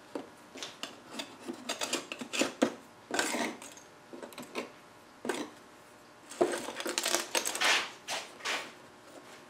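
Irregular clinks, taps and clatters of hand tools and small objects being handled on a workbench, with stretches of scraping or rubbing about three seconds in and again from about six and a half to eight seconds.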